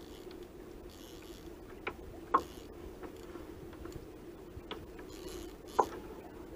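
Fishing reel being worked while a hooked fish pulls against the bent rod. A few sharp clicks come through, the loudest about two seconds in and again near the end.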